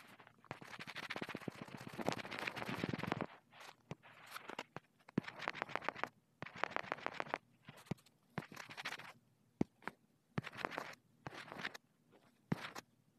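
A finger rubbing and tapping on a phone touchscreen, heard through the phone's own microphone. A long scratchy scrubbing comes first, then shorter bursts of scratching with sharp taps between them.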